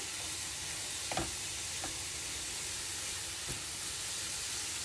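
Grated carrots and garlic sizzling steadily in olive oil in a frying pan as they are stirred with a silicone spatula, with a few light knocks.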